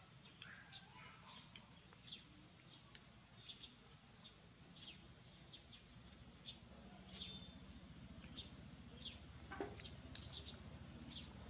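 Faint, scattered short high chirps of small birds over a low steady hum, with a few soft clicks.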